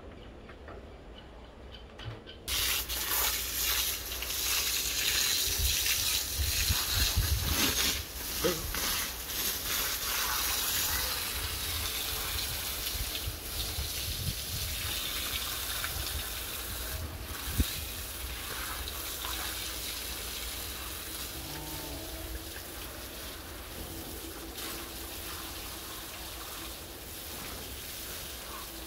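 Water spraying hard from a garden hose onto a sheep's fleece and a plastic slatted floor. The spray starts suddenly about two and a half seconds in and runs on as a steady hiss, easing a little after the first several seconds, with one sharp knock partway through.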